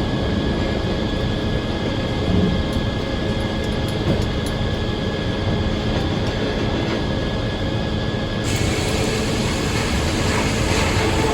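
Circular sawmill running steadily. About eight seconds in, a higher hiss joins the machine noise and continues.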